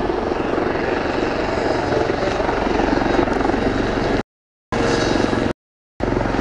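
Helicopter flying a display, a steady rotor and engine noise, broken twice near the end by short gaps of dead silence.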